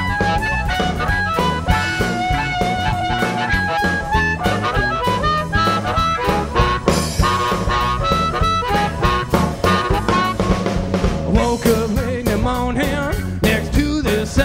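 Blues-rock band playing an instrumental break: a harmonica played cupped against a hand-held microphone solos in held and bending notes over a steady drum kit beat, electric bass and electric guitar.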